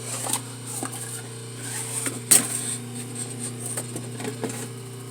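Bench lathe's two-speed induction motor (capacitor or split-phase start) running steadily on its low 1725 RPM setting, giving a steady electrical hum. Over it come several short knocks and clatters, the loudest about two seconds in, from a pot rattling and being handled.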